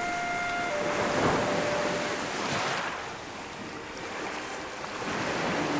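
Ocean waves washing in, swelling about a second in, easing off through the middle and building again near the end, under a few soft held music notes.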